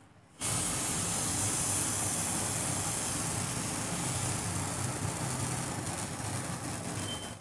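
Steady rushing hiss with a low hum beneath it, starting suddenly about half a second in and dropping away at the end.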